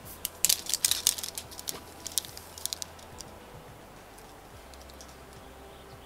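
Hanging mesh screen door being pushed through: a quick flurry of sharp clicks and crinkly rustles over the first three seconds or so, then it falls quiet.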